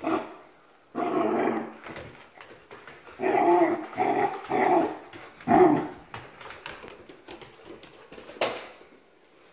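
Goldendoodle puppy barking in play, about six short, loud yaps and growly barks between one and six seconds in. A single sharp knock comes near the end.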